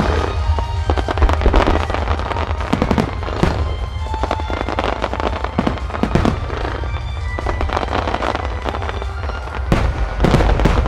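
Fireworks display: aerial shells and low-level mines bursting and crackling in a dense volley, with heavier bangs near the end, over music playing throughout.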